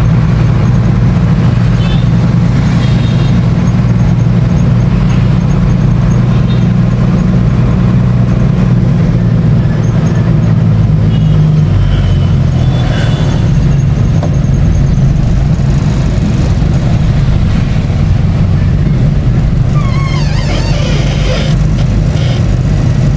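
Steady low drone of a vehicle's engine and road noise while driving. Brief wavering higher-pitched chirps come in near the end.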